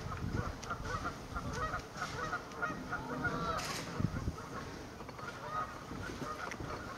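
A flock of waterfowl calling, with many short calls overlapping one another.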